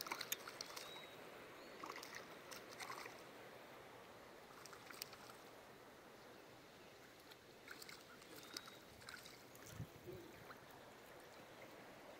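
River water lapping and splashing around a landing net and a camera held at the surface, in short clusters near the start, around two to three seconds in, and again around eight to nine seconds in, with a low bump near ten seconds in, over a faint steady rush of current.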